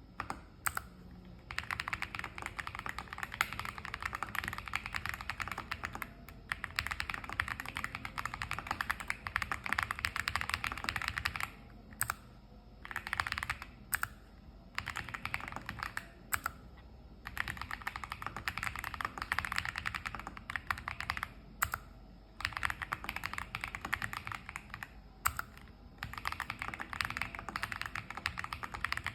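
Sugar65 mechanical keyboard with clicky switches and Cherry-profile keycaps being typed on fast: long runs of crisp clicking keystrokes, broken by several short pauses.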